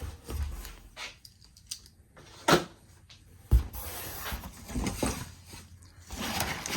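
Spoiler shipping box and its packaging being opened and handled: two sharp knocks about two and a half and three and a half seconds in, with scattered clicks, then rustling of packing material.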